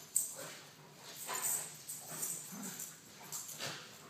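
Dog vocalising in a string of short, irregular sounds.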